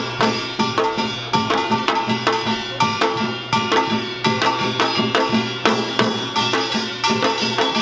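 Yeongnam samul nori played in seated form: kkwaenggwari small gongs ringing over janggu hourglass drums and buk barrel drums in a fast, driving, unbroken rhythm.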